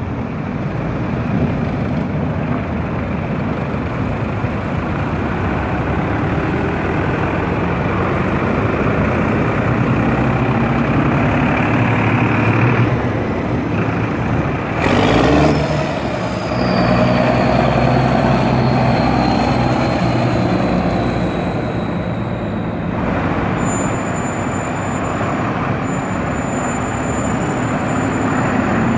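Diesel farm tractors driving past one after another in a slow convoy, their engines running steadily, with a brief louder burst about halfway through.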